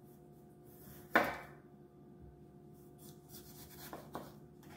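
Chef's knife cutting the skin off an Asian pear on a wooden cutting board: one sharp knock about a second in as the blade meets the board, then a few fainter slicing scrapes near the end.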